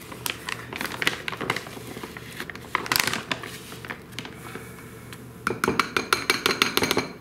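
Rustling and scraping as a plastic measuring cup scoops brown rice flour from a foil-lined bag, then a quick, even run of light clicks from about five and a half seconds in, as the cup is emptied into a ceramic bowl with a spoon in it.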